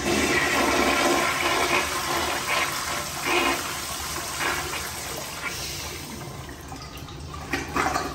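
American Standard Afwall toilet flushing from a manual flushometer valve: a loud rush of water swirling through the bowl that slowly dies away, with a couple of brief surges, one near the end.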